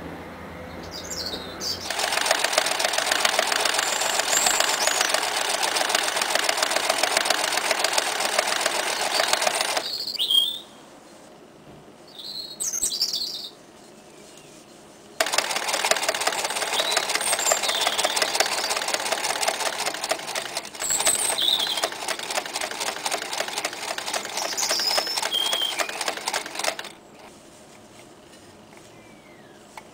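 Frister & Rossmann 503 electric sewing machine running and stitching in two long runs of rapid, even needle strokes, separated by a pause of about five seconds and stopping near the end. Birds chirp faintly in the background.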